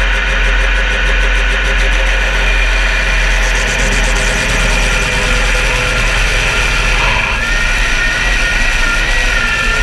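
Modified pulling tractor's engine running loud and steady, with a high wavering whine joining in about seven and a half seconds in.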